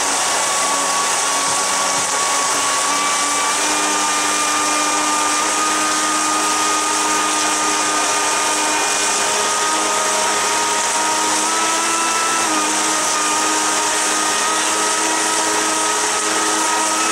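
Electric brushless motor driving a jet-drive unit at about half throttle: a steady whine with small shifts in pitch over the rush and churn of the water jet blasting into a barrel.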